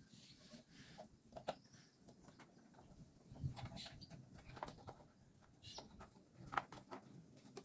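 Faint scattered clicks, taps and a soft thump of motorcycle front-panel parts being handled as it is reassembled.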